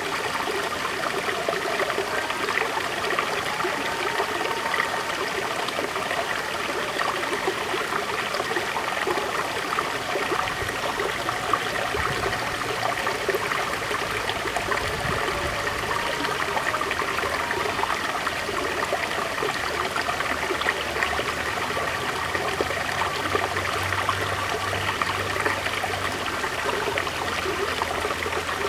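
River water flowing over stones, a steady rush with a dense, fine trickling and splashing texture.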